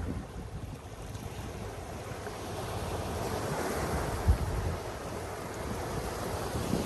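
Sea waves washing onto a beach, swelling to a wave breaking about halfway through, with wind buffeting the microphone and a brief thump near the peak.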